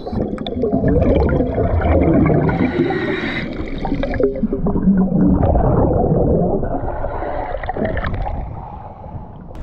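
Underwater recording of a scuba diver's exhaled air bubbles gurgling and rushing past the camera in two long surges, fading near the end.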